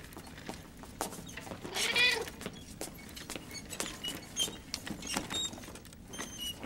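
A hairless Sphynx cat meowing once, about two seconds in, among faint clicks and knocks.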